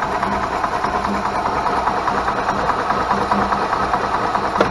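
2001 Club Car DS gas golf cart's Kawasaki engine being cranked over by its starter-generator, turning steadily without firing because there is no spark. The cranking stops near the end with a click.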